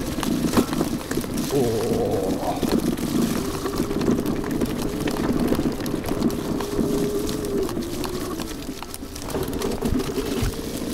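An 800 W electric scooter's motor whining under power on a gravel track. Its pitch rises about two seconds in, then holds fairly steady. Under the whine the tyres crunch on stones and the scooter's frame and stem rattle and knock over the rough ground.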